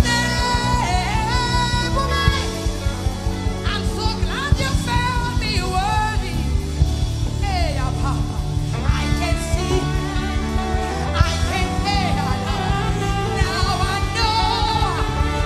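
Live gospel worship song: a woman sings the lead with a wavering, vibrato-laden voice over a band.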